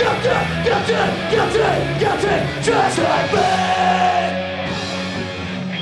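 Live punk band playing loud electric guitar, bass and drums in a fast repeating riff. About three seconds in the riff gives way to a held chord and the cymbals drop out.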